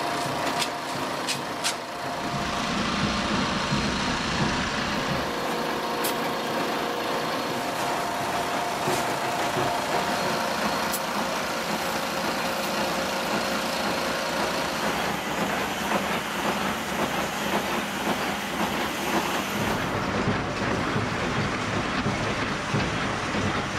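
Steady din of workshop machinery running, with a few sharp clicks in the first couple of seconds.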